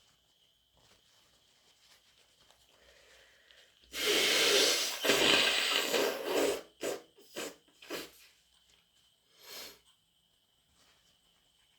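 A person with a bad, snotty cold blowing their nose hard in one long blow of two pushes, about four seconds in. Four short sniffles follow.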